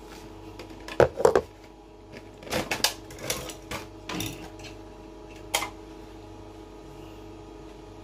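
Tubeless tyre plug kit being handled, its plastic blister pack and metal tools clicking and clattering: a loud rattle about a second in, a run of clicks between about two and a half and four seconds, and one more click a little later, over a steady faint hum.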